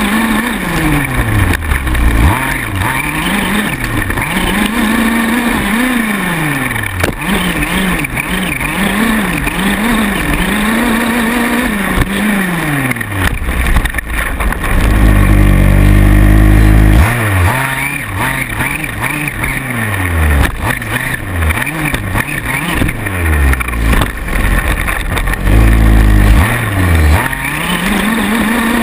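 Small two-stroke engine of a 1/5-scale gas RC buggy racing on a dirt track, revving up and down over and over as the throttle is worked. About halfway through it is held flat-out at a steady high pitch for about two seconds.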